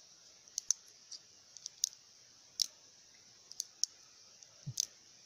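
Benchmade 940 Osborne folding knife's AXIS lock clicking as the blade is flicked open and snapped shut over and over: about ten sharp, high clicks at uneven spacing, with a duller knock near the end.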